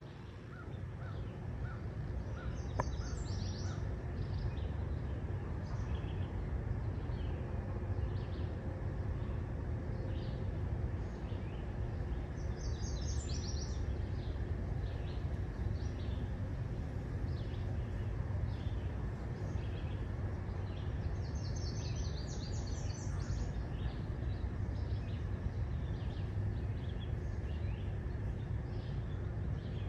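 Steady low rumble of a car rolling slowly along a road, with birds calling outside: short chirps scattered throughout and three louder bursts of rapid high notes, near the start, around the middle and about two-thirds of the way through.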